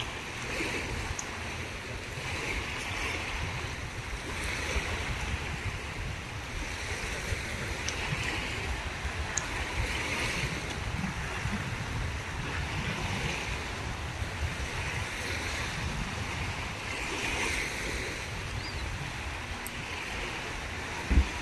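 Small sea waves washing onto the shore, the hiss swelling and fading about every two seconds, with wind rumbling on the microphone. A single short bump comes near the end.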